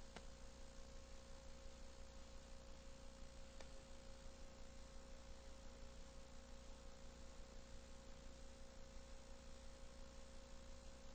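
Near silence: a faint steady electrical hum with a thin steady whine over a low hiss, the noise floor of the recording, with two faint ticks.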